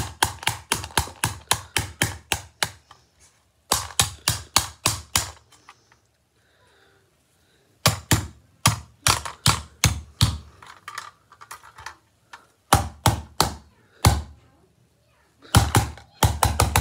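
Screwdriver striking a red sheet-metal toy car again and again, denting the body: runs of sharp metallic taps, about four a second, broken by short pauses.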